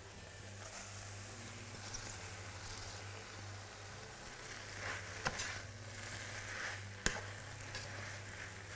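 Mushrooms, cherry tomatoes and garlic sizzling steadily in olive oil in a frying pan as fresh spinach leaves are tipped in and stirred with a spatula, with two sharp clicks about five and seven seconds in.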